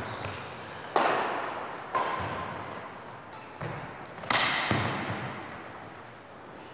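Badminton rackets striking a shuttlecock during a rally: several sharp hits about a second apart, each ringing out in the gymnasium's echo, the first and fourth loudest.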